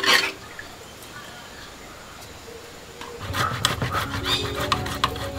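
A short clatter, then from about three seconds in a run of quick scratchy strokes from a handheld metal grater shredding steamed breadfruit, over background music with a low hum.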